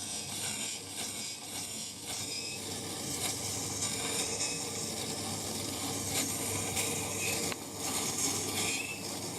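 Scheppach Tiger 2000S wet grinding wheel running with a steel chisel held against the wet stone: a steady hiss and scrape over the low hum of the grinder's motor, with a few faint clicks. The chisel's bevel is being reground to 25 degrees.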